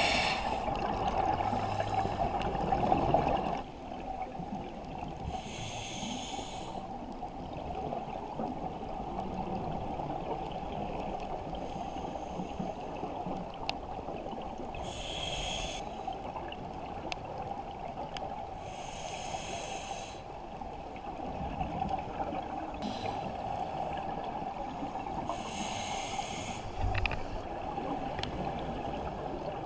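Scuba regulator exhaling underwater: short hissing bursts of bubbles every few seconds, over a steady hum.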